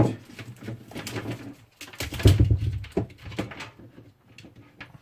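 Handling knocks and clatter as a desktop PC is moved and cabled up, with one heavy thump about two seconds in and a few lighter knocks after it.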